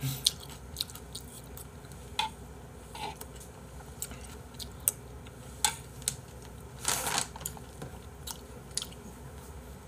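Close-miked mouth sounds of a man eating spoonfuls of abalone rice porridge: scattered small wet clicks as he chews and swallows, with one louder, longer noise about seven seconds in.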